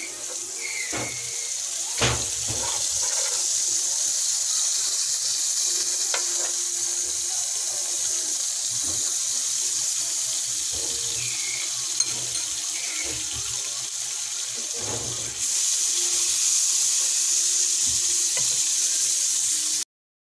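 Butter melting and sizzling in a nonstick frying pan: a steady hiss that gets louder about fifteen seconds in, with a few clicks of a metal spoon against the pan in the first seconds. The sizzle cuts off shortly before the end.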